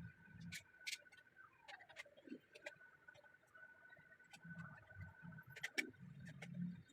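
Faint, scattered light clicks and ticks of hand tools and small parts being handled, over a faint steady high tone.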